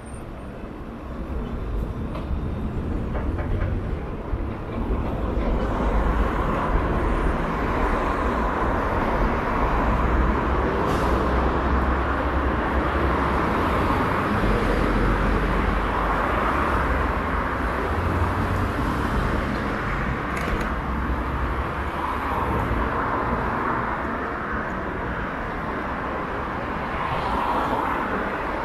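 Steady noise of a moving vehicle on a ride: a low rumble under a rushing hiss, getting louder over the first few seconds and then holding steady.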